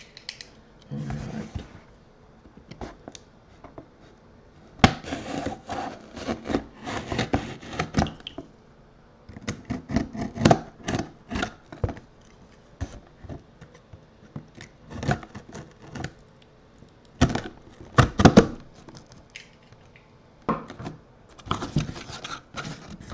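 Corrugated cardboard box being opened by hand: its sealed flaps are pried, rubbed and scraped apart in irregular bursts of short scrapes and clicks, with quiet pauses between.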